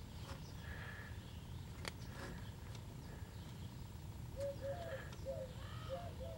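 Quiet room tone with a steady low hum. A single click comes near two seconds in, and from about four seconds in a bird calls in a quick series of short chirps, a few a second.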